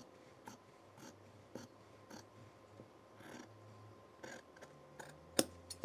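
Fabric shears cutting through a quilted fabric square in a series of short, faint snips, about two a second, with one sharper click near the end.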